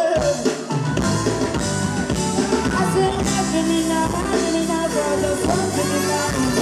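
Live band playing with a woman singing lead into a microphone, over bass guitar, keyboards and drum kit. The low bass end drops out at the start and comes back in under a second in.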